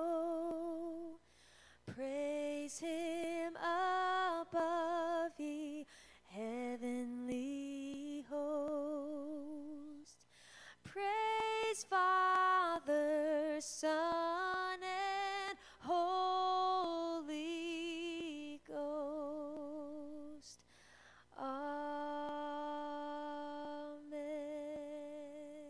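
A woman singing solo and unaccompanied, slow phrases of long held notes with a wide vibrato, separated by short breaths.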